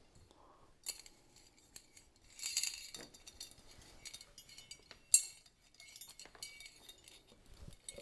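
Light metal clinks and rustling as a ceiling fan's sheet-metal canopy is handled and slid down over the downrod onto the motor housing, with one sharper clink about five seconds in.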